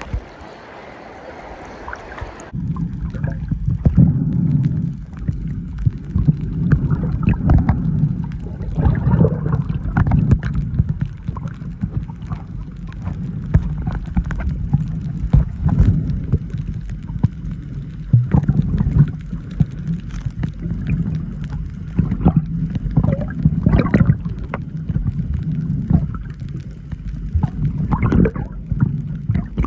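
Water sloshing at the surface, then about two and a half seconds in the sound turns muffled as the camera goes underwater: an uneven low rush of moving water and bubbles with scattered clicks.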